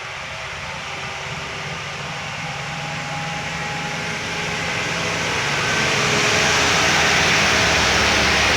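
A heavy vehicle's engine drawing closer, its sound growing steadily louder over about six seconds and then holding steady.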